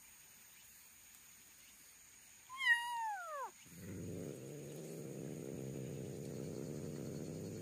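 A cat gives a single meow about a second long that falls steeply in pitch, followed by a low, steady rumbling for about four seconds that stops abruptly.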